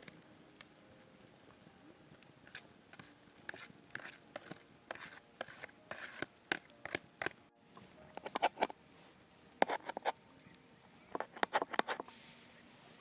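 A series of light taps, knocks and clicks, sparse at first and growing busier from about two seconds in, several of them with a short ring like hard objects touching.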